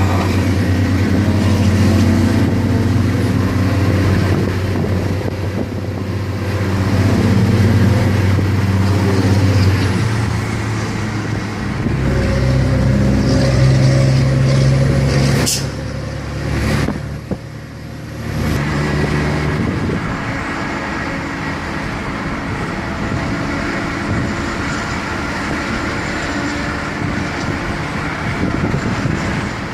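The 380 hp Cummins diesel engine of a Yutong ZK6129HE coach runs under way with a deep, steady drone. About halfway through its note shifts up, then two brief loud bursts of noise come and the level drops, and the engine settles back to a quieter, even run.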